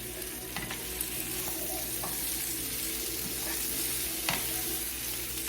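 Sliced smoked sausage frying and sizzling in olive oil in a pan as it browns, with a few sharp clicks, the loudest about four seconds in.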